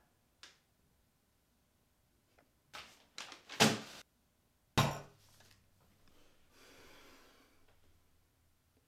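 A few light clicks, then a cluster of sharp knocks and a single heavier thud about five seconds in, like objects being handled and set down in a small room; a faint rustle follows.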